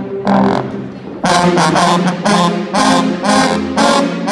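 Sousaphone section playing in unison: a few held notes, then from about a second in a loud run of short punchy blasts, two or three a second.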